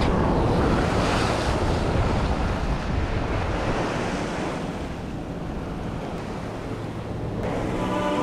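Ocean surf surging and breaking against rocks, with wind buffeting the microphone; the wash is strongest in the first couple of seconds and eases off after that.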